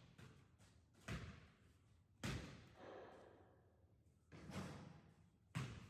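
Four dull thumps at uneven intervals, each trailing off in the echo of a large sports hall.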